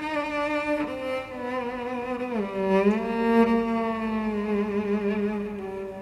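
Slow, sustained bowed-string score music, cello and violin holding long notes with vibrato; the line slides down to lower notes a little over two seconds in and fades near the end.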